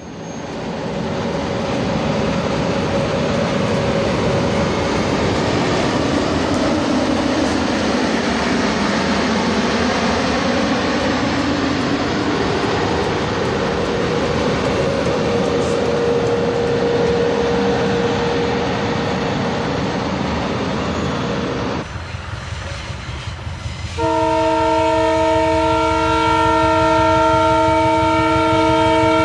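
A Class 7E electric locomotive hauling a train past at speed: a steady rolling rumble of wheels on rail. It is followed by a diesel locomotive's multi-chime air horn, which starts about 24 seconds in and is held as one long chord.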